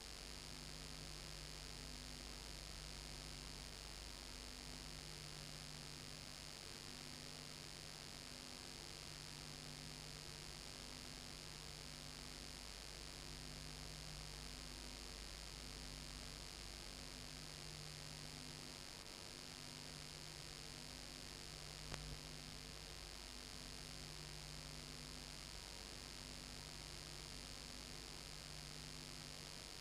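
Low electrical mains hum over a steady hiss, the hum dropping out briefly every few seconds, with a single click about 22 seconds in. The beach waves on screen are not heard.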